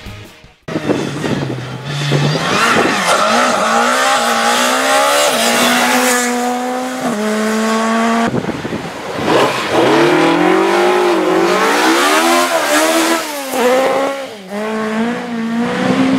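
Rally car engines revving hard at high rpm, the pitch climbing and stepping as gears change. About eight seconds in, a second burst of revs rises and falls.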